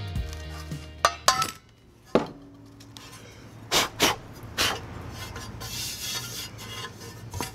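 Background music fades out, then hard knocks and clinks as a cut porcelain tile is handled and a cordless angle grinder is set down on a wooden workbench. There are about six separate strikes, the loudest when the tile is lifted off its cut-out disc near the middle.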